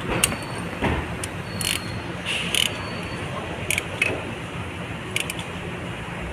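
Irregular sharp metallic clicks and clinks over a steady low hum.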